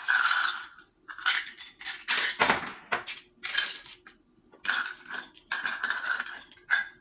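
Ice cubes clattering and clinking as they are scooped from a bowl and tipped into a tall glass holding a drink, in about six separate bursts.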